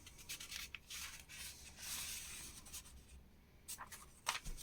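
Paper pages of an old magazine rustling as they are handled and turned, with a few sharp crinkles near the end.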